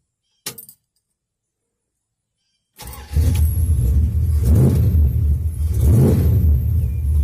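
A Dodge 340 small-block V8 fires and catches about three seconds in, after a short sound near the start. It then runs loudly, rising and falling about every second and a half as the throttle is blipped.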